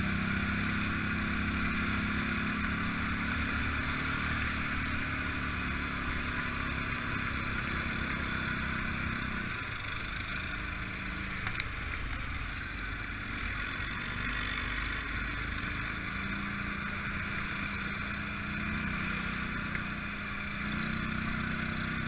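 ATV engine running, its steady note easing off about halfway through and picking back up near the end.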